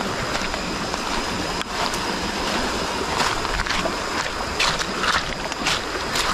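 Swollen, fast-flowing stream rushing steadily, with irregular brief splashes of water every second or so.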